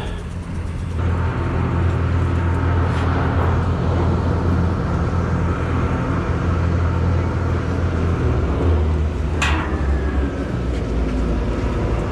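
Chairlift terminal machinery running with a steady low hum. One sharp clank with a short ring comes about two-thirds of the way through.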